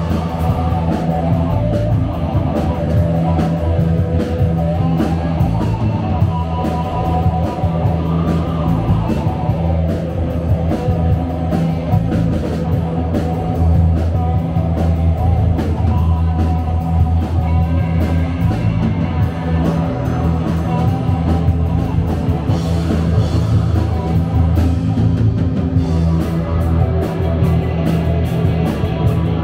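Live rock band playing: electric guitar over bass guitar, drums and keyboards, with a steady cymbal beat.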